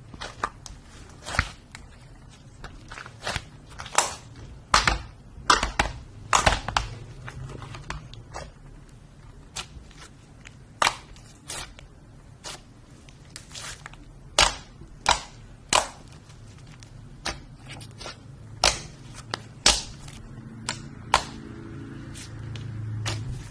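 Slime being squeezed and pressed by hand, giving sharp, irregular pops and crackles, sometimes a few in quick succession.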